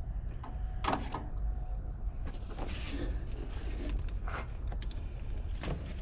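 A few sharp knocks and rattles with a short scraping stretch, the clatter of hand work on a truck's seat and fittings, over a steady low rumble.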